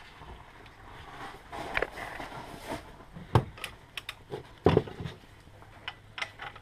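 Irregular metallic clicks and knocks with a brief scraping, from hand tools and metal parts being worked on the gearbox while the reversing light switch is fitted. Two knocks a few seconds in are the loudest.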